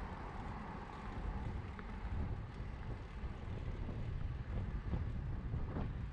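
Wind rumbling on the microphone of a bicycle-mounted camera while riding, with the sound of road traffic under it.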